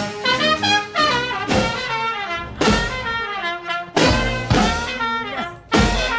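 Brass instruments, trumpet and trombone, playing a lively tune, with several heavy low beats along the way.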